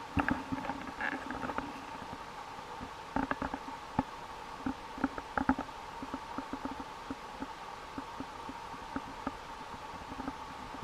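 A Shiba Inu puppy's paws moving about on a hard surface: irregular light taps and scuffs, in quick clusters early and again a few seconds in, then sparser.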